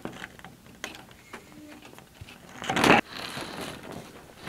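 A Suntuf corrugated polycarbonate roofing panel being handled against the wooden greenhouse rafters: a few light knocks, then a loud scraping, flexing rush of plastic on wood about three seconds in that builds and stops abruptly.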